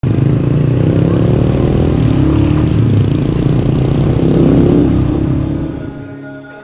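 Motorcycle engine running under way, mixed with the rush of wind and road noise. Its pitch climbs as it accelerates. Near the end it fades out and soft music comes in.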